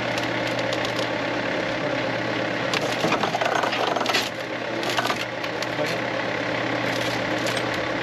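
Wood-Mizer LT70 sawmill's hydraulic log turners rolling a big log on the bed, the wood and bark cracking and splintering in sharp clicks and bursts as it turns, over the steady run of the mill's engine.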